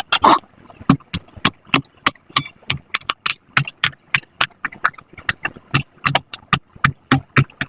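Pop-it fidget toy bubbles being pressed in one after another: a quick, uneven run of sharp pops, about four a second.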